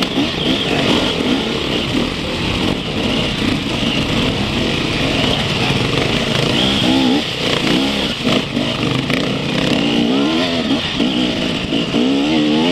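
Several enduro dirt bike engines running at close range, revving hard with the pitch swinging up and down repeatedly as the riders work their bikes through mud.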